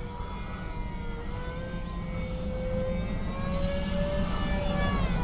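Twin brushless electric motors with three-blade props of an Avios Albatross HU-16 V2 RC flying boat, whining in flight. The whine slowly rises in pitch and grows louder, then wavers near the end.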